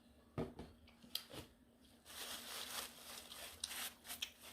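Close-up eating and food-handling sounds: a few soft clicks, then about two and a half seconds of crinkly rustling with more clicks near the end.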